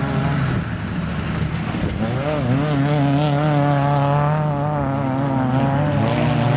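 Autocross race car engines at high revs as cars run the dirt circuit, one car coming close. The engine note wavers and dips about two and a half seconds in, then holds high and steady until another dip near the end.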